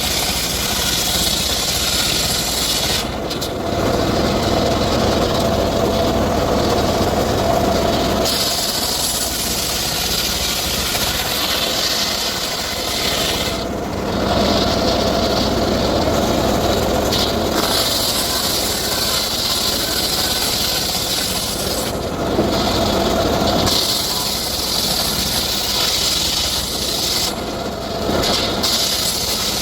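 Circular saw running and cutting teak wood. Its sound shifts to a lower, steadier tone for a few seconds three times.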